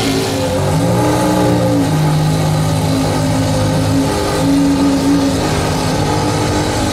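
Ferrari F50's 4.7-litre V12 running at low revs, its pitch swelling up about a second in and again around four and a half seconds in as it is gently revved.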